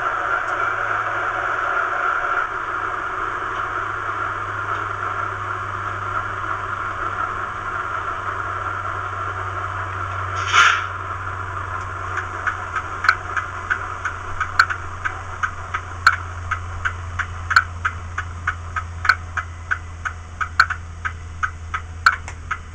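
Model diesel sound from a Howes DCC decoder in a Hornby Class 60, played through a bass reflex speaker: the Class 60 engine idling with a steady low hum under a higher drone. About ten seconds in there is a short hiss of air. After it a regular ticking of about two a second sets in while the engine sound slowly fades.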